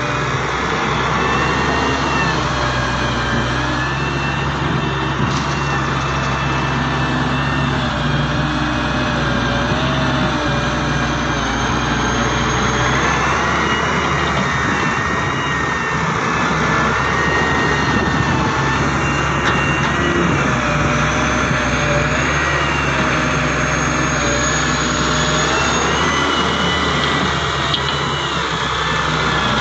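Diesel engine of a Daewoo wheeled excavator running steadily under load, with a high whine that slowly rises and falls as the boom and bucket work.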